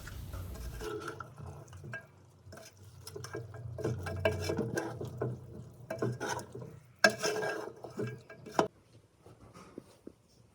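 Spoons and utensils clinking and scraping against pots and dishes as food is stirred and served, with a loud cluster of clatters about 7 seconds in, then the clatter stops and it goes quiet.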